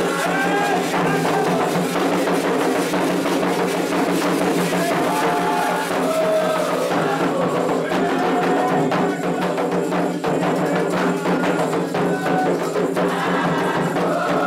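Candomblé ritual music calling the voduns: a steady, dense rhythm on atabaque hand drums and a struck bell, with voices singing over it.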